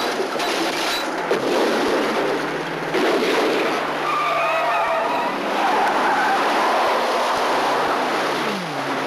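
Cars driven hard with tires skidding, and a wavering tire squeal about four seconds in.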